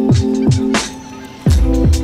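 Electronic background music: held synth chords over deep kick drums that drop in pitch, with hi-hats, and a heavy bass note coming in near the end.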